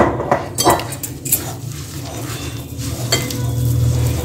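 Hand mixing and kneading semolina and flour with water in a glass bowl, with a few scattered knocks and clinks against the glass. A low steady hum runs underneath.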